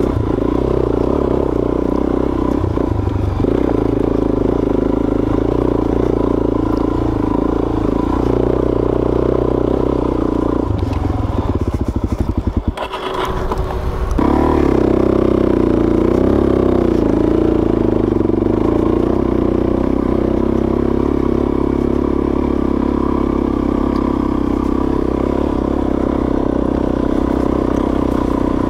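Suzuki DR-Z400S single-cylinder four-stroke engine running steadily as the bike is ridden along a dirt trail, with a brief dip about halfway through.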